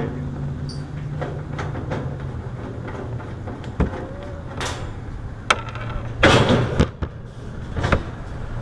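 A steady low mechanical hum that fades out about six seconds in, with scattered knocks and clatter and a louder rustling burst shortly after.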